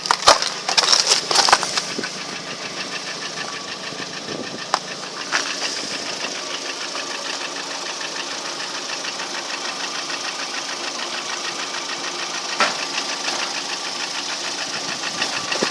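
Lada Priora's four-cylinder petrol engine idling with a steady, rapid ticking knock, the unexplained knock that appeared after a year of use. A few sharp knocks come in the first two seconds.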